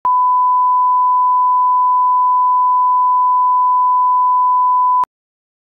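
Broadcast test tone played with SMPTE colour bars: one steady, pure beep held for about five seconds, then cut off suddenly with a click.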